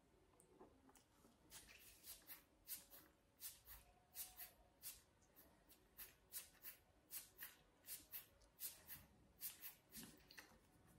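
Faint, rhythmic sucking clicks from a pacifier held in the mouth, about two to three a second, starting about a second and a half in. This is the sound of repeated sucking with the tongue pressing the teat against the palate, done as a mouth-muscle exercise.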